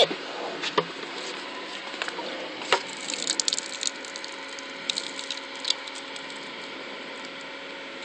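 Dirty water poured out of a Hoover Spot Scrubber's plastic tank and splashing onto gravel, with scattered clicks and knocks from the tank being handled.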